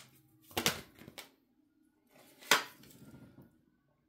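Tarot cards being shuffled and drawn by hand: a few short papery snaps and rustles, the loudest about two and a half seconds in.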